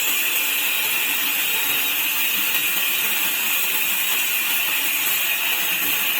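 Sawmill saw running steadily with a high, even whine and rasp, without break or change.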